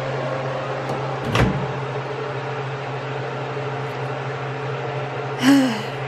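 A microwave oven's door is popped open with one sharp click about a second and a half in, over a steady low hum. A short vocal sound comes near the end.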